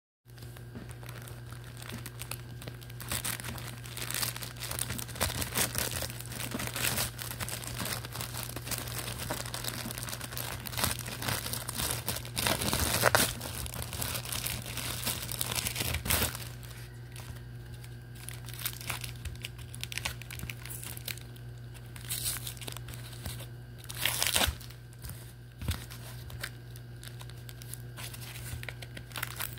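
Plastic courier mailer bag crinkling and being torn open by hand, with the loudest tears about 13 and 16 seconds in. Then quieter, sparser rustling and scraping as a cardboard box inside is handled, with a couple of louder rustles.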